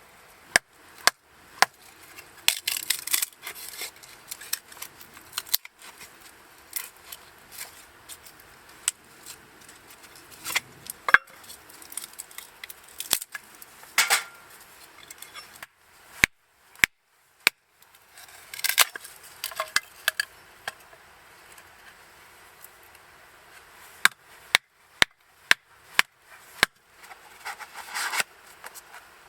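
Irregular sharp clicks and knocks, with several short bursts of rustling in between.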